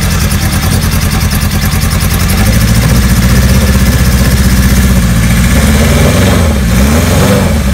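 1975 Kawasaki Z1 900's air-cooled inline-four idling on choke just after a cold start. It gets louder about two seconds in, and near the end its speed briefly dips and picks back up.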